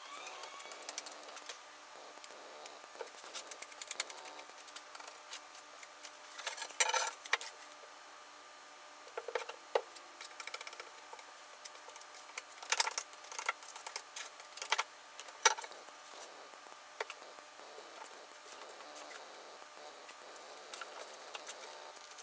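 Red oak strips being handled and pushed together on a workbench while they are glued up: scattered light wooden clacks and taps, busiest about seven seconds in and again about thirteen seconds in.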